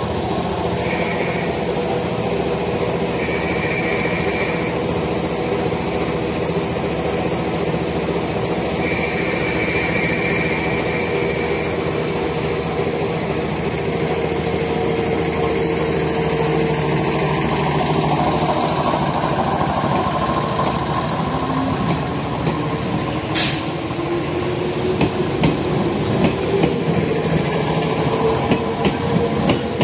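381 series electric train running beside the platform with a steady mechanical hum. About two-thirds of the way in, a motor whine rises in pitch and wheels start clacking over rail joints as the train picks up speed.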